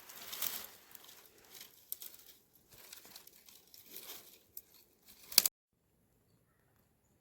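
Irregular rustling and crinkling, ending in a sharp, loud crackle just after five seconds, after which the sound cuts off abruptly.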